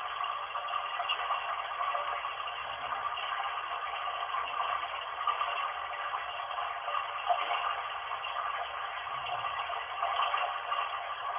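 A recording of running bath water, played back through a speaker and picked up by a Nokia phone: a steady, thin rush of water with no deep or high tones.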